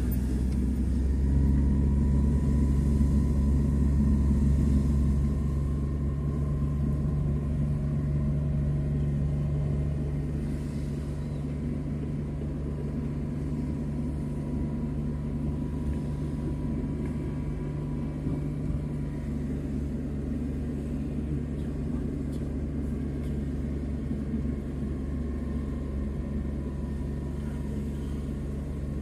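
Steady low rumble of a vehicle on the move, engine and road noise with a faint constant hum, slightly louder for the first few seconds.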